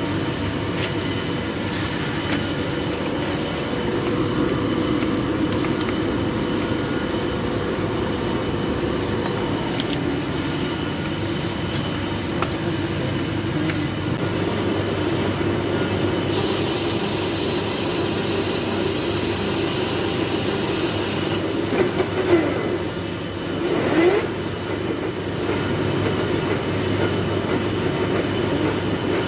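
A metal lathe running while it turns a large iron workpiece, giving a continuous mechanical rumble. A higher hiss joins in for about five seconds past the middle, and two short pitch glides follow.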